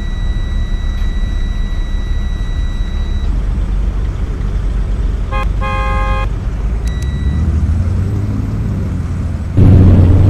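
School bus horn blown once for about a second, a little past five seconds in, over the low rumble of an idling bus engine. A thin steady high tone sounds for the first three seconds, and about a second before the end the low rumble gets suddenly much louder.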